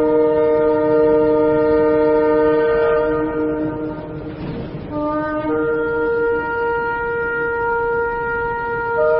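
Shofar blown in long steady blasts. The first blast holds for about four seconds and breaks off into a brief breathy rush. A second long blast starts about five seconds in and holds to the end.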